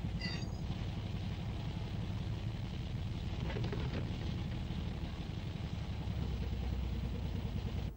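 Diesel railcar engine idling with a steady low rumble while the railcar is refuelled from a can. The sound cuts off abruptly just before the end.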